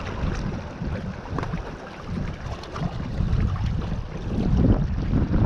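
Gusty wind buffeting the microphone, rising and falling, over small waves washing against a rocky lakeshore.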